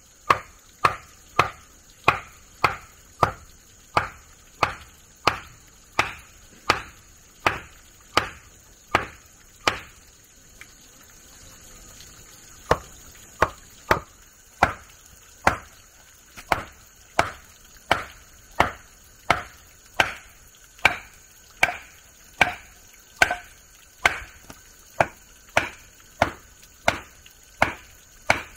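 Rhythmic blows of a hand tool striking, about one and a half a second, pausing for a couple of seconds midway, over a steady high-pitched buzz.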